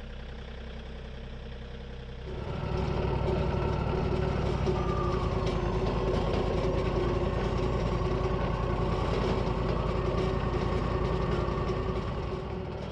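Portable sawmill's engine running at idle, then throttled up about two seconds in and running steadily at speed, easing back near the end.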